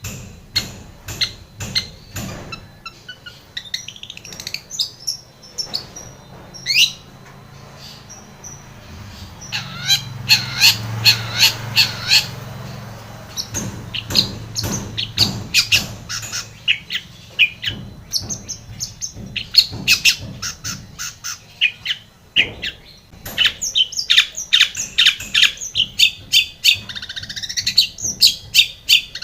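Long-tailed shrike (cendet) singing a fast chattering song of short, sharp notes and slurred whistles. Loud rapid volleys come about ten seconds in and again from about twenty-three seconds.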